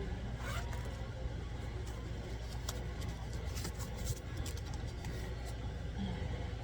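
Steady low background rumble, with a run of light clicks and taps from small objects being handled in the middle of the stretch.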